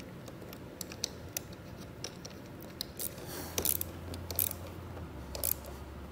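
Scattered light clicks and scrapes of small metal parts as a wire's ring terminal is fitted over a threaded stud on a car battery's positive terminal, with a few slightly louder clicks past the middle.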